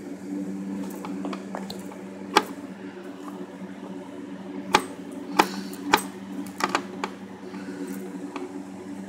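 Sharp clicks and knocks of a vacuum cleaner's housing parts being handled and fitted back together, about seven in all and bunched in the second half, over a steady low hum.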